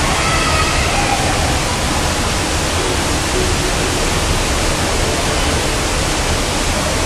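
Steady, even rushing noise filling an indoor swimming pool hall, the water-like wash of a natatorium.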